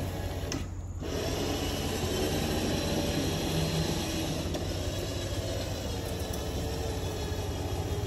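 Badland 9,000 lb electric winch running, pulling its cable taut under load to drag down a structure. It eases off briefly just under a second in, then runs on steadily over a low hum.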